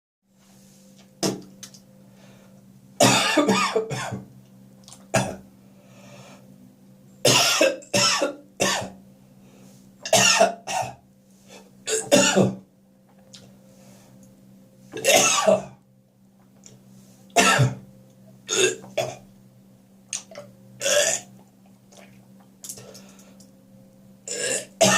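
Repeated harsh coughing and gagging fits, about ten bouts at irregular intervals, some in quick runs of two or three hacks. A steady low hum runs underneath.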